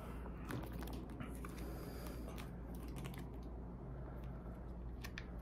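Light crinkling and scattered small clicks of a small paper packet being handled and torn open, over a steady low hum.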